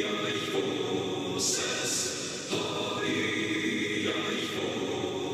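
Music with a choir singing sustained chords that shift every second or so.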